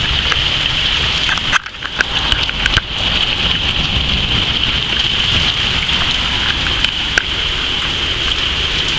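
Heavy rain falling steadily as a dense, loud hiss, with a brief drop in level and a few sharp clicks about two seconds in.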